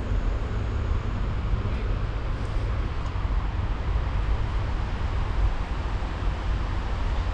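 Steady road traffic noise from a busy city avenue: a constant low rumble of passing vehicles.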